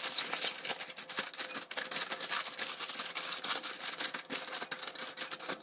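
Aluminium foil crinkling and crackling as hands press it down into a pot and onto a steamer stand: a dense, irregular run of small sharp crackles.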